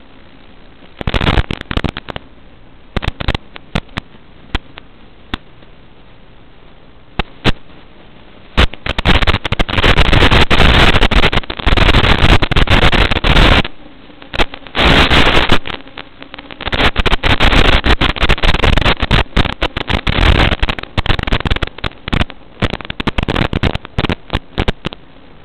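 Static from an analog FPV video receiver: a steady low hiss broken by irregular bursts of loud crackling noise as the video signal breaks up. The bursts start about a second in and are longest and most frequent through the middle.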